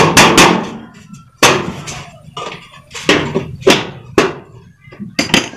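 Sheet-metal box gutter being struck, a series of sharp knocks at uneven intervals with a short ring after each, some in quick pairs, as its corner seam is worked.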